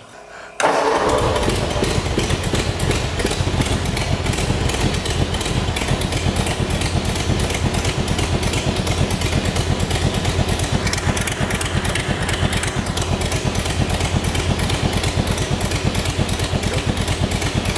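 Ford flathead V8 engine starting about half a second in and then idling steadily with a quick, even firing pulse.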